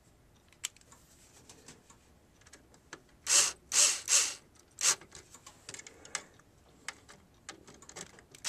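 Cordless drill/driver driving screws into a CPU heatsink retention frame in short spins: three quick ones about three seconds in and one more shortly after, with light clicks of the bit and screw in between.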